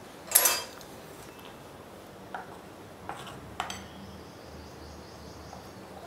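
A steel spoon stirring semolina batter in a glass bowl, with a few sharp clinks of spoon on glass. A short loud hiss comes just after the start.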